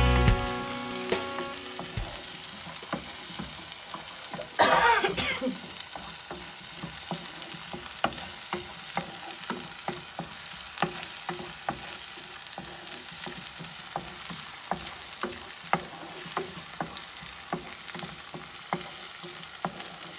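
Finely chopped onion sizzling in olive oil in a nonstick frying pan, with frequent light clicks and scrapes of a utensil stirring it against the pan. One louder rasp about five seconds in.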